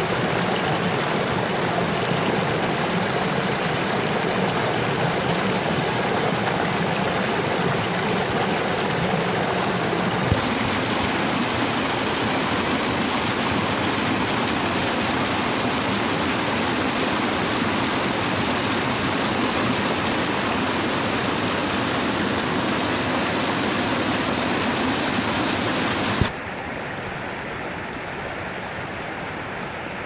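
Water rushing and splashing down a small rocky cascade, a steady, close, full rush. The sound changes character about a third of the way in, then drops suddenly to a quieter, steady rush near the end.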